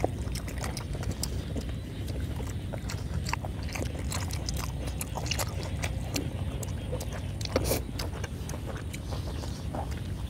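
Close-miked chewing and biting of boiled pork cheek meat: irregular wet mouth clicks and smacks over a steady low rumble, with one louder click about three-quarters of the way through.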